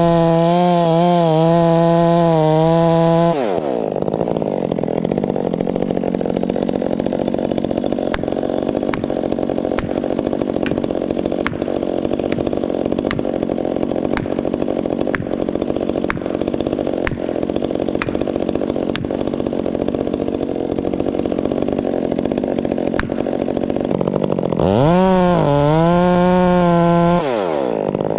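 Two-stroke chainsaw at full throttle, its pitch wavering as it cuts under load. About three seconds in it drops to a lower idle and runs on for some twenty seconds. Near the end it revs up and cuts briefly again, then drops back to idle.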